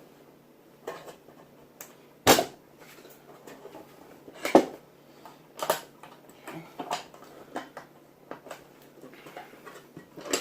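Irregular knocks and clicks of painted pine boards and corner clamps being handled and fitted, as the pieces are lined up and clamped at a corner. The two loudest knocks come about two and four and a half seconds in.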